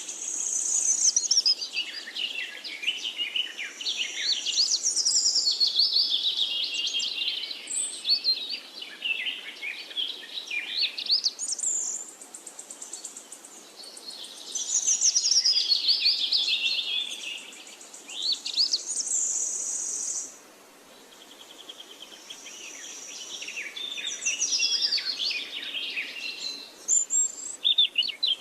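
Songbirds singing long, rapid warbling phrases of chirps and sweeping notes, in several bouts with short pauses between them. A high, steady buzz comes and goes behind the song.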